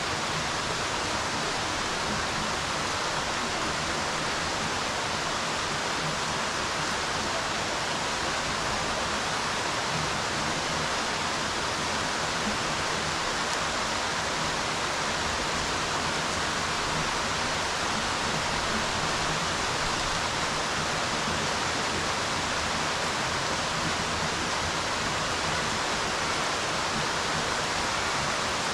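Rain falling steadily on a swimming pool's water surface, an even, unbroken hiss of drops striking the water.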